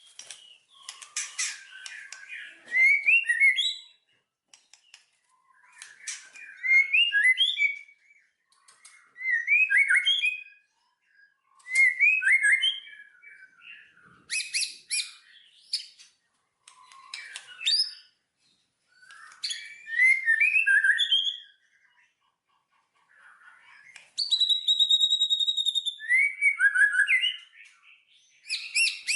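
A songbird singing short, varied phrases of chirps and trills, one every two to three seconds, with a long steady whistled note near the end.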